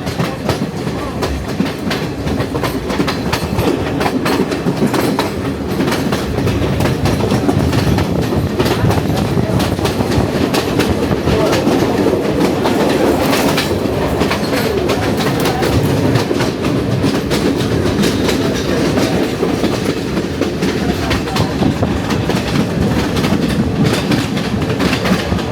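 Passenger train running along the line, heard from aboard a carriage: a steady rumble with the wheels clattering over rail joints in a clickety-clack.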